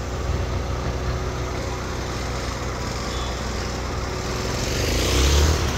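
A small engine running steadily, a low even hum under a haze of outdoor noise, with a louder rush of noise about five seconds in.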